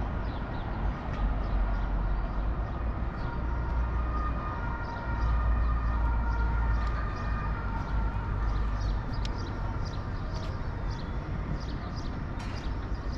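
Outdoor city ambience: wind rumbling on the microphone over the steady noise of distant road traffic, with faint high chirps scattered throughout and a faint drawn-out tone in the background.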